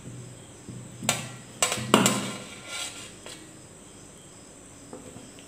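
Stainless-steel slotted spoon clinking and tapping against a steel pan and a steel tray: several sharp metallic clinks, most of them in the first three seconds.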